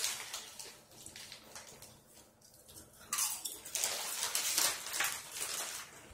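A plastic Doritos chip bag crinkling as a hand rummages in it for chips. The crinkling is loudest for about two seconds starting about three seconds in.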